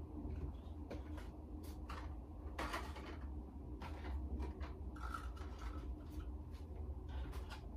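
Scattered light clicks and knocks of small medicine boxes and bottles being picked up and handled, over a low steady hum.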